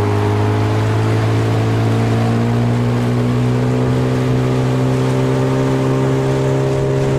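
Boat motor running under way, its pitch rising slowly and steadily as it picks up speed.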